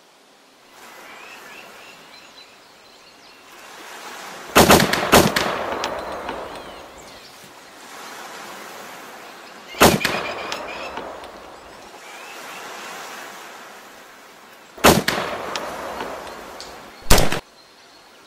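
A series of loud, sharp bangs over a steady outdoor hiss: a quick cluster of three or four about four and a half seconds in, a single bang near ten seconds, two close together near fifteen seconds, and a last one shortly before the end. Each bang trails off over a second or so.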